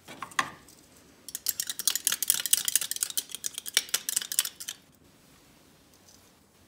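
A toy spoon stirred quickly round a toy bowl, a rapid clattering scrape of many fast strokes that starts about a second in and stops about five seconds in.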